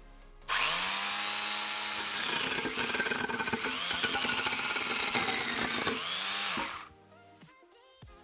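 Angle grinder driving an 11.5-inch chainsaw bar adapter: it starts about half a second in and spins up, the chain cuts through a wooden beam, and the motor winds down near the end. Music plays underneath.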